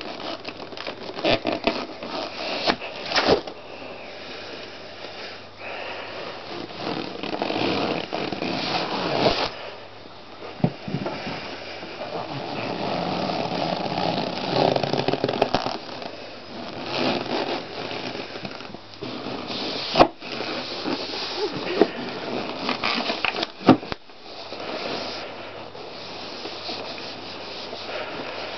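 Inflated latex balloons squeaking and rubbing as a foot presses and squashes them. Irregular creaking runs throughout, broken by a few sharp snaps, the loudest about three seconds in and around twenty and twenty-four seconds in.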